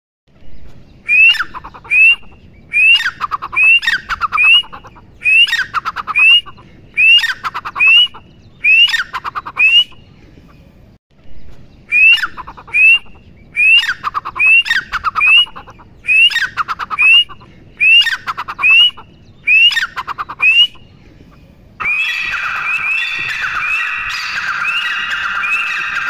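Grey francolin calling: loud, ringing, rising notes repeated about twice a second in two long runs with a short pause between. About 22 seconds in, the sound changes to a denser run of overlapping calls over a steady background hiss.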